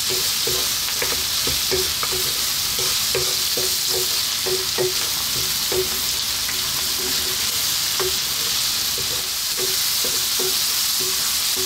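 Lamb pieces with chopped onion and garlic sizzling in hot oil in a nonstick frying pan, stirred with a wooden spoon that knocks and scrapes against the pan in short, irregular strokes.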